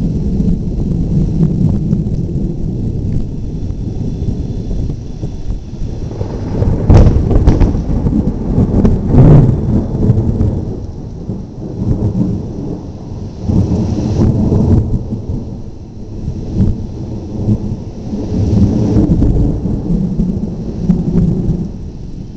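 Thunder rumbling and rolling on without a break, swelling to its loudest peals about 7 and 9 seconds in, with further swells later on.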